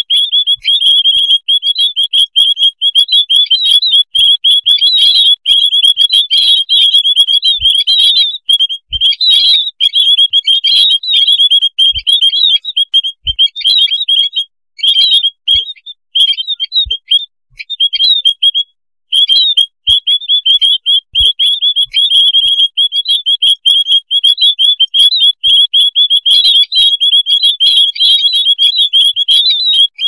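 A noisy flock of white-headed munias (emprit kaji) calling: a dense, unbroken chatter of rapid, high, short chirps, with a few brief pauses about halfway through.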